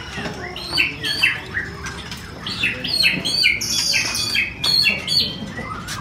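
Many caged songbirds chirping and calling at once, a dense mix of short overlapping chirps.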